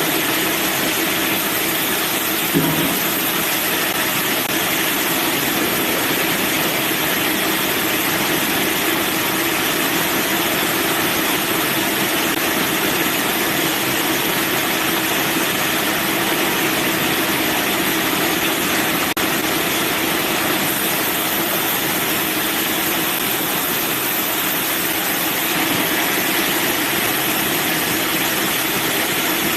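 Manual band sawmill running steadily, with one short knock about two and a half seconds in.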